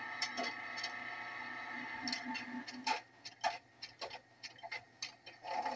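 A sound decoder's small speaker in a Piko EN57 model electric train playing simulated start-up sounds. A faint steady hum with scattered clicks drops away about three seconds in, leaving a few isolated clicks. Near the end a tone starts and rises slightly as the simulated train starts up.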